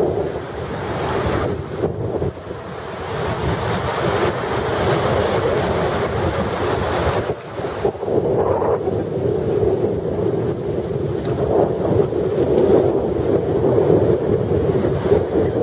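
Small waves washing onto a sandy shore in a steady wash of surf, with wind noise on the microphone.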